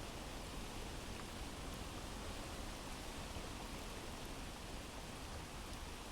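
Rain sound effect: steady rainfall, an even hiss with a few faint drop ticks.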